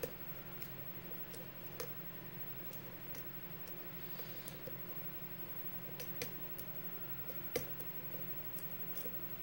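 Irregular small metallic clicks and ticks of a pin-tumbler lock being single-pin picked with a hook pick under tension, as pins are lifted, set and drop back; one sharper click about seven and a half seconds in, over a steady low hum.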